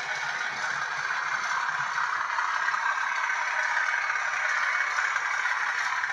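Bachmann OO-gauge Class 37 model's factory DCC sound decoder playing the English Electric diesel engine sound through its small onboard speaker: a steady, rattly running sound that grows a little louder in the middle.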